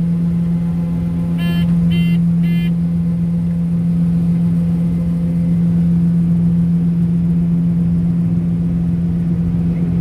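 John Deere 9560 STS combine's diesel engine and unloading auger running steadily, heard from inside the cab as a constant hum. Three short electronic beeps sound about one and a half to two and a half seconds in, the combine's warning beeps while unloading.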